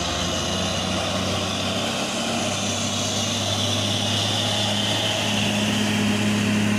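Loaded diesel truck's engine labouring uphill, a steady deep drone with tyre and road noise that grows a little stronger in the second half as the truck passes close by. The truck is struggling to pull its load up the climb.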